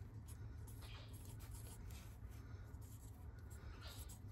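Marker pen writing on an oil filter's canister, a faint scratching over a low steady hum.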